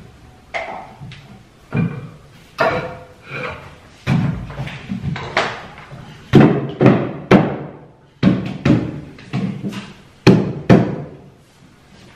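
Wooden shelf board being knocked into place onto steel hidden-support rods set in the wall: a series of sharp wooden knocks, often in quick pairs, loudest in the middle.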